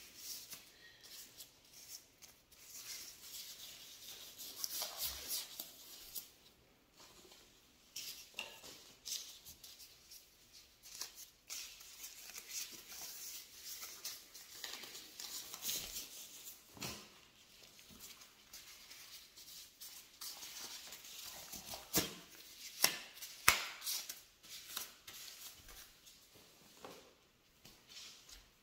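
Thin clear plastic disposable gloves crinkling and rustling as they are worked onto the hands, with rubber gloves pulled on over them near the end. The rustling is irregular, broken by short sharp snaps that are loudest about three-quarters of the way through.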